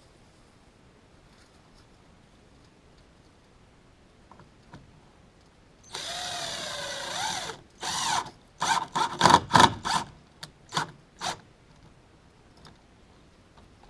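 Power drill running: one steady run of about a second and a half, then a string of short trigger bursts that stop a little after eleven seconds in.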